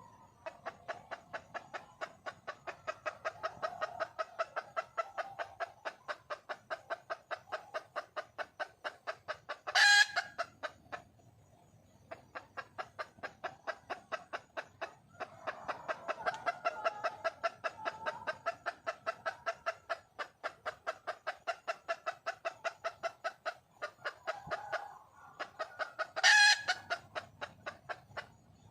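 Junglefowl hen calling for a mate: long runs of rapid clucks, about four a second, each run capped by a much louder, sharp squawk, twice.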